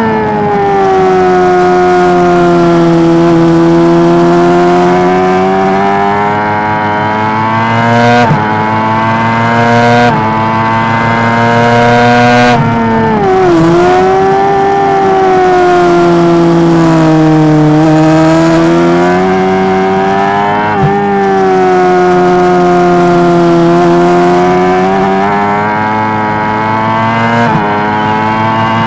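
Honda CBR600RR's inline-four racing engine at high revs, heard from on board. Its pitch swings down and climbs back up again and again, with short sharp breaks in the note several times at gear changes.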